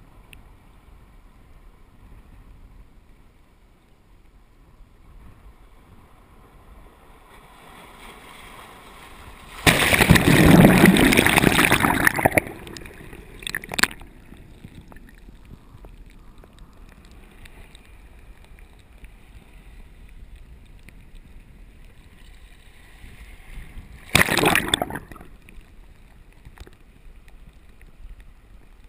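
Surf burbling into a tide pool at the waterline: a low, steady wash of water, then a loud surge of rushing water about a third of the way in that lasts some three seconds, and a second, shorter surge of about a second near the end.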